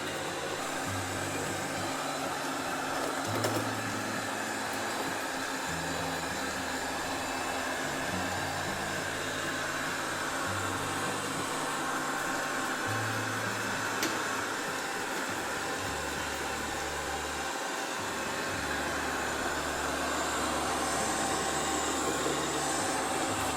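iMartine C900 robot vacuum cleaner running, a steady whir of its suction motor and brushes. Under it, low tones step from pitch to pitch every second or two.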